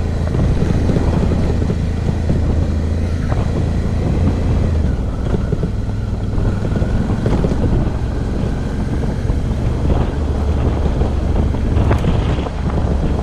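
Suzuki V-Strom's V-twin engine running at riding speed on a dirt road, with wind buffeting the microphone. The engine note drops about five seconds in, and there is a sharp tick near the end.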